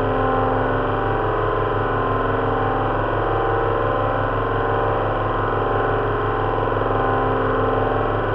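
Simulated sound of an Avro Lancaster's four Rolls-Royce Merlin V12 engines running steadily at a constant speed. It is mixed from four recordings of a speaker-based Merlin engine-sound setup at slightly different RPMs, with a fan heater's whir standing in for the propeller noise.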